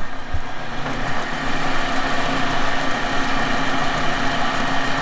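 Milling machine running, its end mill cutting into a lithium-ion phone battery that is throwing sparks and smoke: a steady motor hum under an even hiss that builds over the first second, with one knock near the start.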